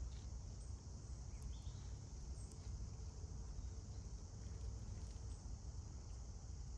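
Outdoor ambience: a steady high drone of insects over a low rumble, with a few faint, short bird chirps.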